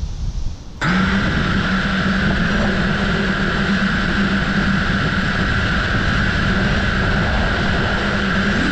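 FPV quadcopter's brushless motors and propellers starting up about a second in, then spinning at a steady idle with a level whine, as when the quad is armed and waiting before throttle-up. Wind on the microphone is heard briefly before the motors start.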